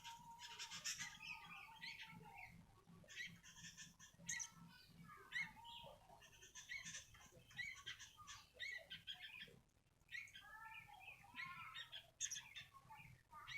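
Sooty-headed bulbul (kutilang) chirping and singing in quick runs of short notes that bend up and down in pitch, with brief pauses between phrases.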